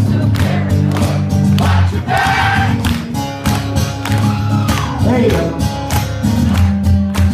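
Live acoustic rock song: acoustic guitar strummed in a steady rhythm, with many voices singing along.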